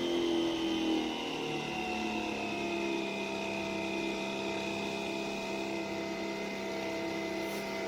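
Nespresso Vertuo Pop capsule machine brewing: its motor whirs, spinning the capsule, together with the water pump, a steady whine that slowly sinks in pitch.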